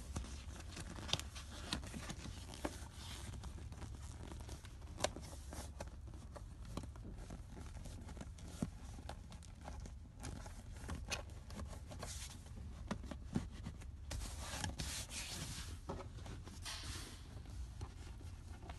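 PVC (vinyl) seat cover rustling and scraping against the seat as hands stretch it and tuck its edges in, with scattered small clicks and a louder stretch of rubbing near the end.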